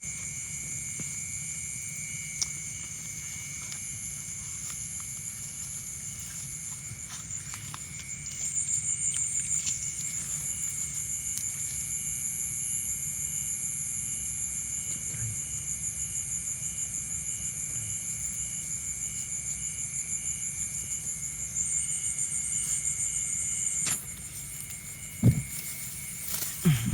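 Insects trilling steadily in a high-pitched pulsing chorus, louder about eight seconds in and again a few seconds before the end. A low thump comes about two seconds before the end.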